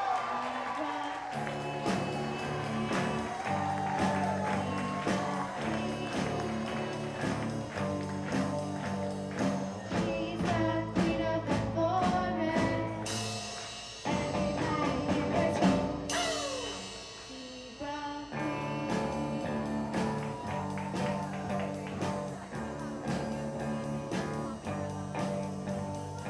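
A children's rock band playing live: electric guitars through amplifiers and a drum kit keeping a steady beat, with a girl singing over them. The band thins out to a quieter break about seventeen seconds in, then comes back in full.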